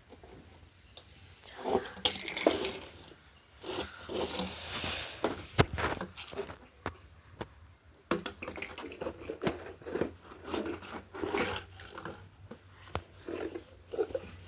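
Scattered sharp little clicks of lice and nits being crushed between fingernails while hair is picked through, with soft rustling between them.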